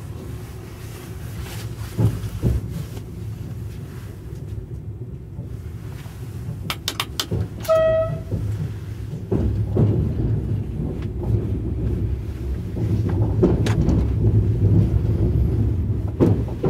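Low rumble of a TGV heard inside the driver's cab, growing louder a little past halfway as the train runs on. Just before halfway come a few sharp clicks and a single short beep from the cab as the driver works the desk controls.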